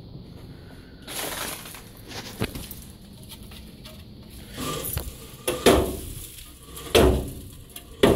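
Rusty sheet-metal blades of an old air-conditioning fan being pushed and turned by hand, scraping and rattling, with three loud metal clanks in the second half.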